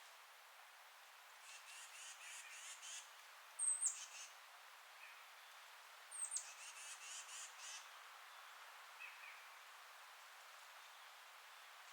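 A songbird singing two phrases of quick, evenly repeated high notes, each with a sharp, high, down-slurred note, the loudest near the middle of the clip, with a few faint single chirps between. A faint steady hiss of wind in the forest trees lies underneath.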